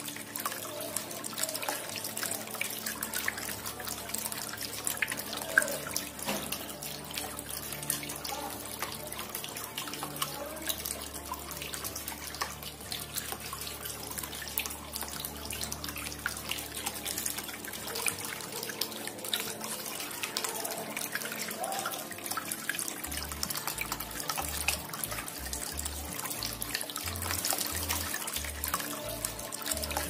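Water pouring from the spout of a small cement tiered fountain into the bowl below, a steady splashing trickle.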